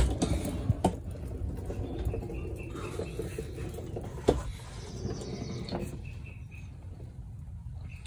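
Shuffling and camera-handling noise as a person gets down and crawls under a car on a garage floor. A few sharp knocks come through it: one right at the start, one just under a second in, and the loudest about four seconds in.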